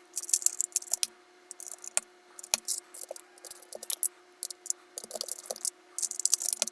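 Small plastic clicks and snaps in irregular clusters: mechanical keyboard switches being pressed into hot-swap sockets and keycaps pushed onto them.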